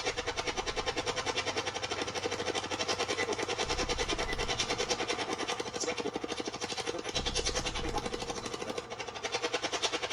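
Ghost-hunting spirit box sweeping through radio frequencies: fast, even, choppy static that pulses many times a second, with brief snatches of broadcast sound.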